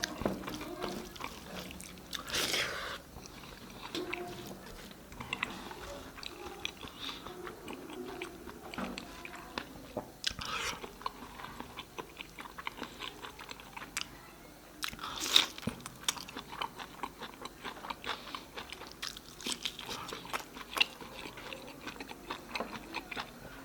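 Close-miked eating: a person chewing and biting food with many small wet clicks and crunches, and a few louder mouthfuls spread through.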